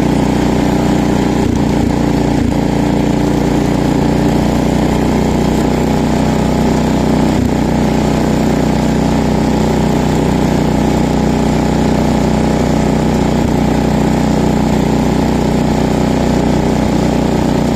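Cub Cadet 126 garden tractor's 12-horsepower Kohler single-cylinder engine running steadily, with a few light knocks about two seconds in and again near the middle.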